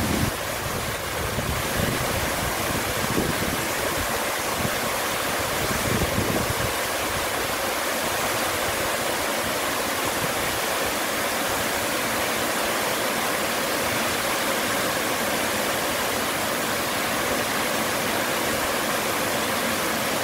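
Waterfall cascading over stepped rock ledges into a creek: a steady, even rushing of falling water. Some low rumbling shows in the first several seconds.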